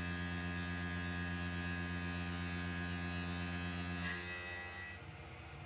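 Tormach CNC mill face-milling metal stock with a Shear Hog face mill: a steady hum made of many even tones while it cuts. About four seconds in the cutter runs off the end of the part with a brief squeal, and the sound drops to a quieter hiss.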